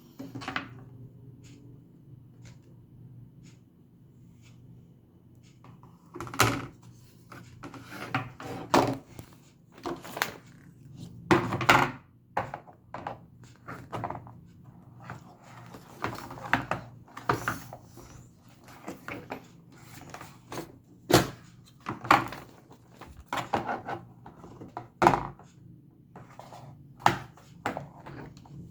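Back cracking: a run of irregular sharp thunks and pops, roughly one every second, starting about six seconds in, some of them loud.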